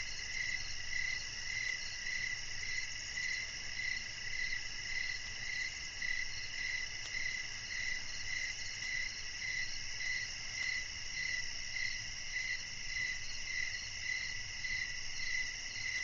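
Steady chorus of crickets chirping, pulsing evenly about twice a second.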